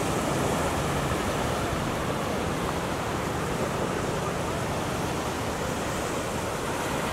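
Steady wash of surf, with small waves running up and draining back on the sandy shore.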